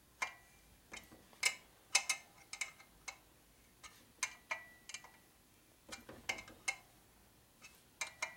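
Wrench clicking and clinking on the steel oil-line fitting bolts at the rocker boxes of a Harley-Davidson shovelhead engine as they are tightened a little at a time, side to side. The clicks are sharp and irregular, a few every second, some with a short metallic ring.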